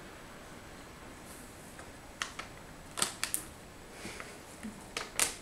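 A stiff plastic bag of dry cat food crinkling and clicking as it is held up and nosed by a cat: a click about two seconds in, a quick cluster of three a second later, and two more near the end, the last the loudest.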